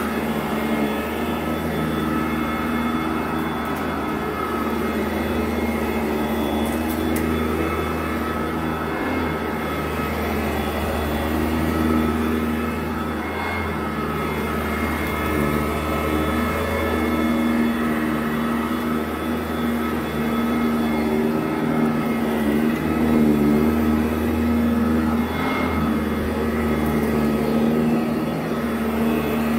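Modified 2010 Sanitaire SC899 commercial upright vacuum running on carpet, with a steady motor whine. Its lower hum wavers slightly in pitch as it is worked.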